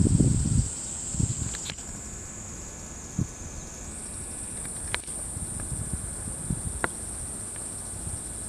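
Insects droning in one steady high-pitched band, which shifts slightly higher about four seconds in. A few low rumbles in the first second and a handful of faint sharp clicks sound alongside.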